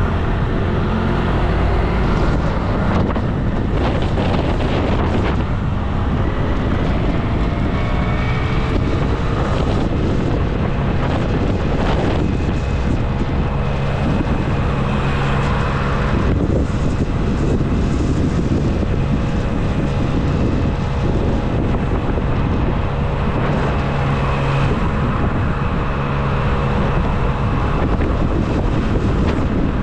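Steady wind rushing over a bike-mounted action camera's microphone while riding, with road traffic running underneath.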